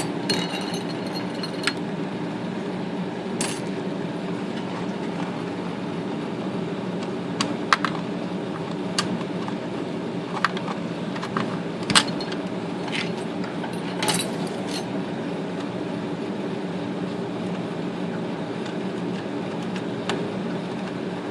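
Small metal parts of a Smith Corona electric typewriter's carriage-return mechanism clicking and tapping now and then, as a part is worked into place between the rack and a bracket. A steady low hum runs underneath.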